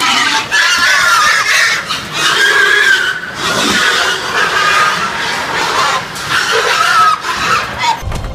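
Pigs squealing as they are herded: a run of long, wavering, high-pitched squeals, one after another, cutting off abruptly near the end.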